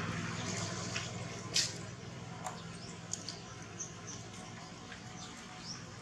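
Young macaques scuffling and wrestling on dry dirt and leaves: soft rustles and scrapes, with one sharper rustle about one and a half seconds in.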